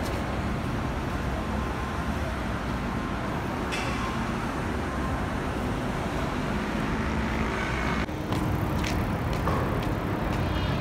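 Steady city street traffic noise, a low rumble of vehicles.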